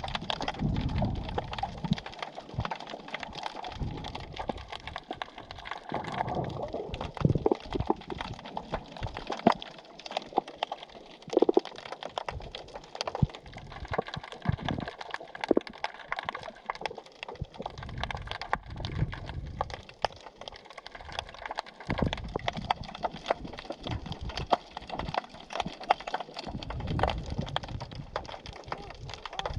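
Underwater sea sound: a dense, steady crackle of many small clicks and snaps, with low surges of moving water now and then.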